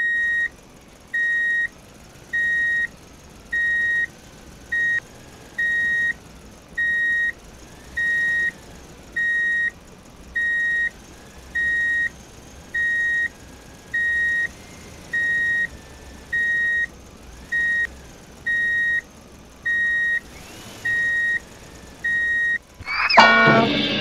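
Reversing-alarm beeping: one steady high beep about once a second, each about half a second long, repeating evenly. A short loud burst of a different sound comes in near the end.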